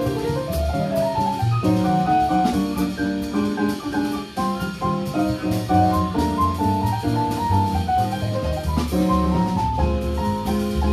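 A small live band playing jazz: chords on a stage keyboard over a moving bass line, with drums keeping time in regular cymbal strokes.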